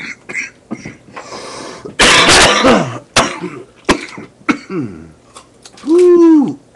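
Someone coughing and clearing their throat. There is a loud harsh cough about two seconds in, short sharp catches after it, and a voiced throat-clearing sound near the end.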